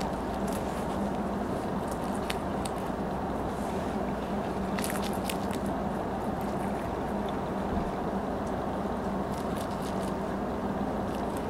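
A rabbit chewing kale: crisp crunching clicks, scattered and in short clusters, over a steady background hum.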